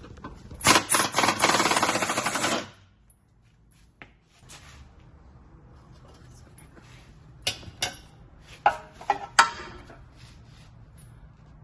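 Impact wrench hammering for about two seconds, working on a subframe bolt, followed some seconds later by a few sharp metallic clicks and knocks of hand tools.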